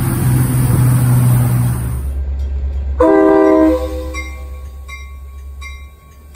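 A miniature live-steam locomotive running with a steady hiss of steam, then, about three seconds in, a Metra commuter train's horn sounds one short blast that fades within a second, followed by a faint bell ringing.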